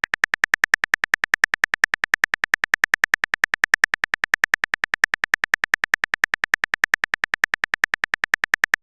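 Typing sound effect of a texting-story chat: a rapid, even train of short high ticks, about nine a second.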